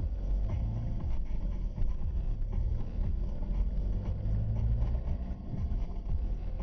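Car engine and road rumble heard inside the cabin as the car drives off through a junction and on down the road, a steady low rumble.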